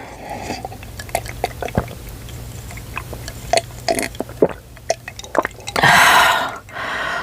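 Close-miked mouth sounds of eating and drinking: a run of small wet clicks and smacks, then a loud breathy rush lasting under a second, about six seconds in.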